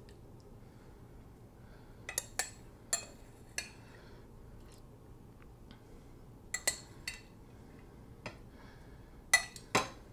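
A spoon tapping and clinking against a pot and a plate while scooping out cooked quinoa: a few short, ringing knocks about two seconds in, two more around six and a half seconds, and two near the end.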